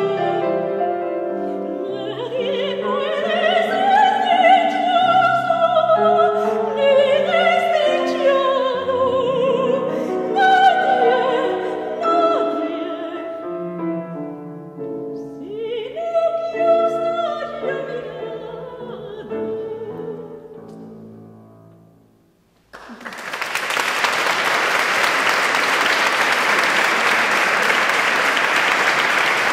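Female operatic soprano singing with piano accompaniment, the song dying away about 22 seconds in. After a brief hush, the audience breaks into steady applause.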